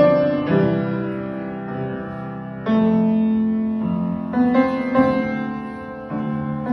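Slow instrumental introduction played on a keyboard: held chords that change every one and a half to two seconds, each fading gently after it is struck.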